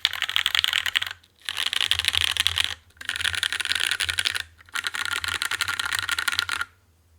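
Fast typing on a custom 60% mechanical keyboard (UTD 356 Mini) with lubed and filmed Cherry Retool Black linear switches, an aluminium plate, an O-ring gasket mount and GMK keycaps. It comes in four quick runs of dense key clacks with short pauses between them.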